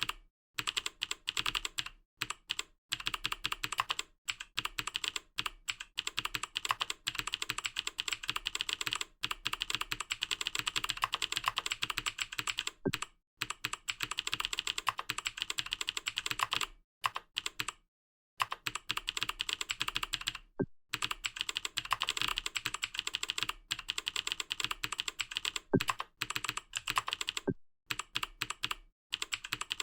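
Fast typing on a computer keyboard: a dense run of rapid keystrokes, broken by several brief pauses.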